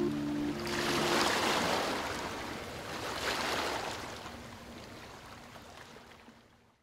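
Ocean surf, two waves washing in and drawing back, fading out to silence. The last held notes of background music die away in the first second.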